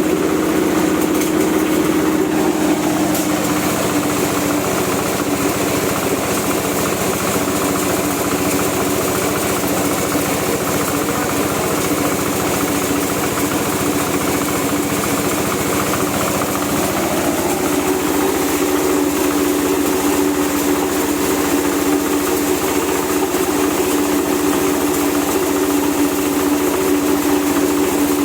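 Dry-coffee huller running under its drive engine, a steady machine hum with a wash of noise. The hum fades about three seconds in and comes back stronger from about seventeen seconds.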